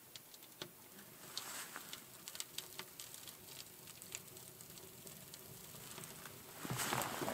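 Freshly lit tinder and small twigs catching, with faint, sparse crackles and ticks. A louder rush of noise comes in near the end.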